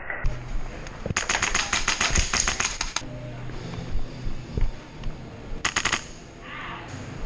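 Airsoft guns firing in rapid automatic bursts: a burst of sharp cracks lasting about two seconds, then a short burst later on.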